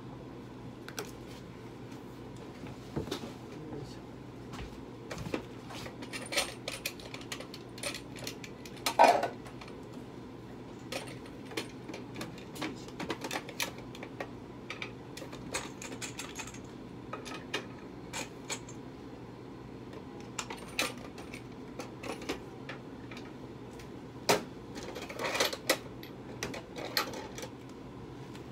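Irregular small clicks and taps over a steady low hum, with a louder knock about nine seconds in and a cluster of taps near the end.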